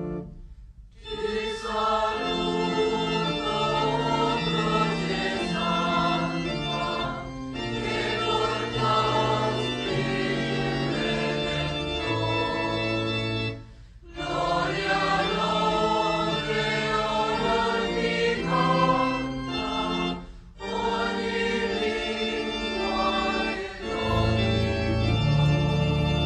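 A church choir singing a slow hymn in long held phrases, broken by brief pauses several times.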